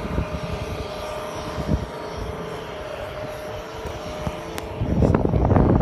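Gusting blizzard wind rumbling against the microphone, a steady low roar that grows louder about five seconds in.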